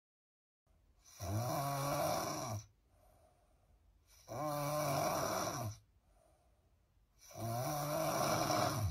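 Loud, pig-like snoring: three long snores about three seconds apart, each rising then falling in pitch, with a faint breath between them.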